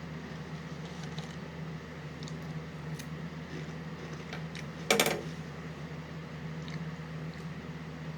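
Light clinks of a spoon in a cereal bowl, with one louder clatter about five seconds in, over a steady low room hum.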